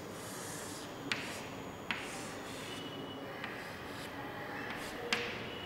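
Chalk scratching across a chalkboard as lines are drawn, with three sharp taps of the chalk: about a second in, near two seconds and about five seconds in.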